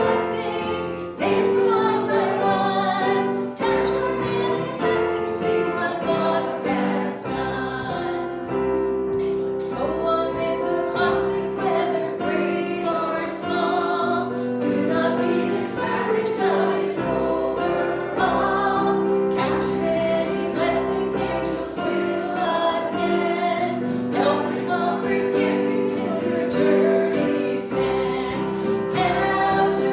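A group of voices singing a gospel hymn with instrumental accompaniment.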